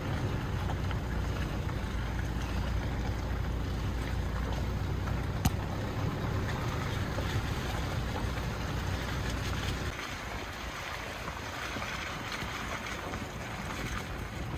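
A car driving along a forest road: steady tyre and wind noise over a low rumble that eases off about ten seconds in, with one sharp knock about five seconds in.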